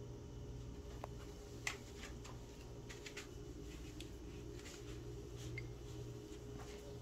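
Faint scattered clicks and light taps, the sharpest just under two seconds in, as a cat moves about among jars and a cardboard box on a tile floor, over a low steady hum.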